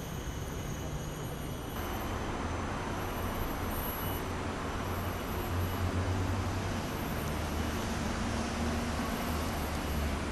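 Steady low rumble of distant road traffic under outdoor ambience, with faint high-pitched steady tones above it; the background shifts slightly about two seconds in.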